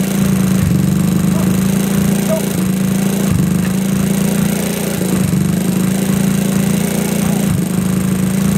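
GY6 scooter's single-cylinder four-stroke engine running steadily.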